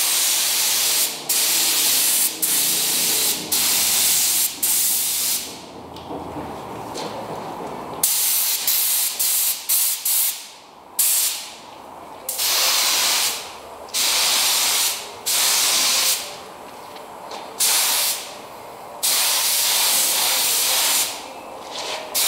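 Compressed-air gravity-feed spray gun spraying paint, hissing in a run of bursts a second or two long as the trigger is pulled and let go on each pass.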